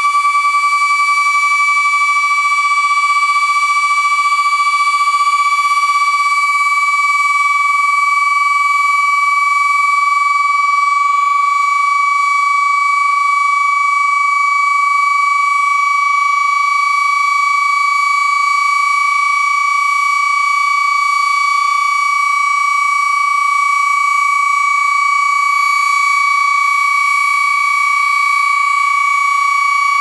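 Two Sentry F-2 fire sirens sounding together on a steady, unwavering tone: the alert signal of a weekly fire siren test.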